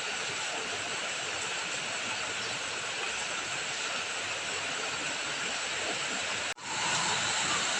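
Steady rain and running water, an even continuous hiss. It cuts out for an instant about six and a half seconds in, then resumes slightly louder.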